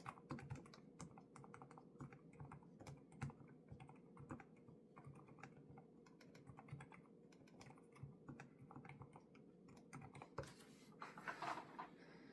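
Typing on a Lofree Flow2 low-profile mechanical keyboard with Kailh Void switches: soft, irregular key clacks, several a second, with a denser flurry near the end.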